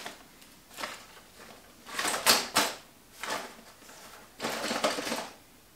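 A cardboard model-house kit box being handled and opened, with rustling and scraping in four or five short bursts; the loudest comes about two seconds in.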